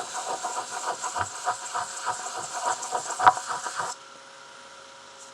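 Sandpaper rubbed by hand back and forth over a silver pendant, in quick scratchy strokes about four or five a second, with one sharp knock just after three seconds. The sanding stops abruptly about four seconds in, leaving a faint steady hum.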